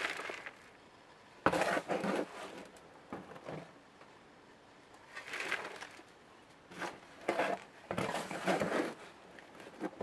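Trowelfuls of loose potting soil scooped from a plastic wheelbarrow and poured into a plastic pot: a gritty rustling pour with each scoop, coming in separate bursts every second or two.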